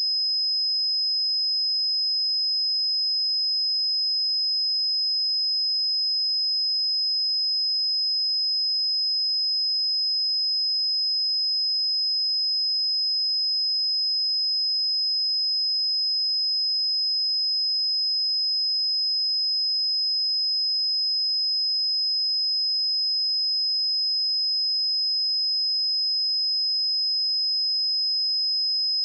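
A pure 5074 Hz sine-wave test tone, one high, steady pitch held unchanged at constant volume, for checking speakers or headphones.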